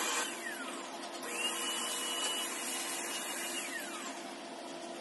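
A high electric-motor whine over a rushing hiss, winding down near the start, spinning back up about a second in, then winding down again near the end.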